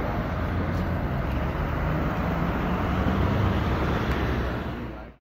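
Road traffic noise with a van's engine running close by: a steady low rumble under a wash of street noise, a little louder about three seconds in, cutting off suddenly near the end.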